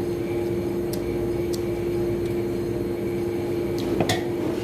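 A steady machine hum, one constant pitched tone over a low rumble, with a few short light clicks, one about a second in and one near the end.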